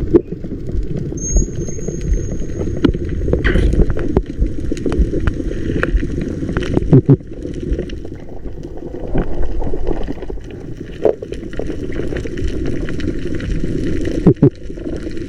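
Underwater sound picked up while spearfishing: a steady low rumble of water noise with scattered sharp clicks and crackles, loudest in a few snaps about seven seconds in and again near the end. A thin, steady high whistle sounds for about two seconds near the start.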